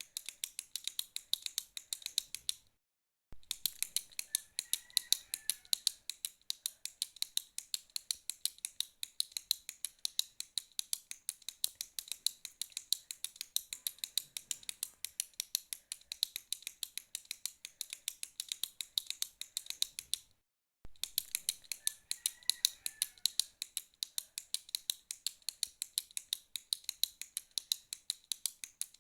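A retractable pen's push-button being clicked rapidly and evenly, several clicks a second. The clicking stops dead twice for under a second each time.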